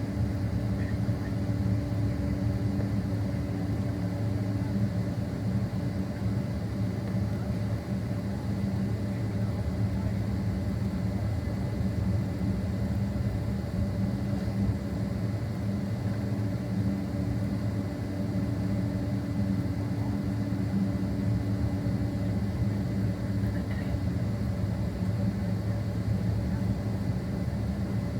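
Steady cabin drone of a Boeing 767-300 taxiing, heard from a passenger seat: engines at idle and a low rumble with a few held hums. One hum drops out about five seconds in and comes back for a stretch midway.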